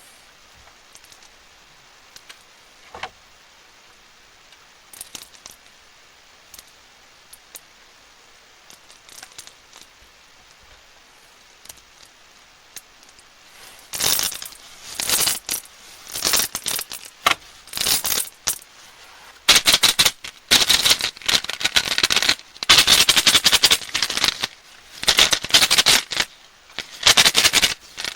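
Plastic candy wrappers being handled and unwrapped: faint scattered taps and clicks at first, then from about halfway on, dense bursts of crinkling and rustling.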